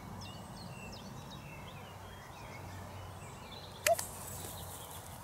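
Small birds chirping and twittering in short calls over a steady outdoor background with a low hum. One sharp click stands out about four seconds in.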